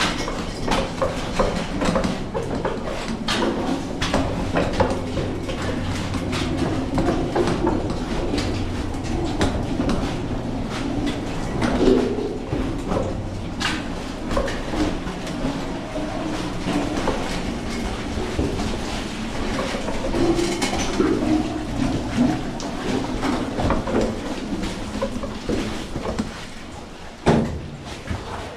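Loaded mine ore car rolling along the tunnel rails, its steel wheels clattering and knocking over the track in a steady rumble.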